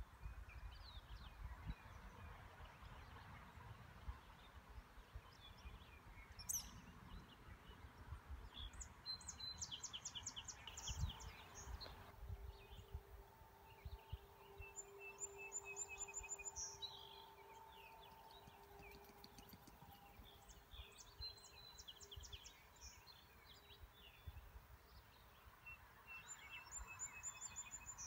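Songbirds singing: a short phrase of a whistled note and a fast high trill, repeated four times about six seconds apart, with other faint chirps around it. Wind rumbles lightly on the microphone underneath.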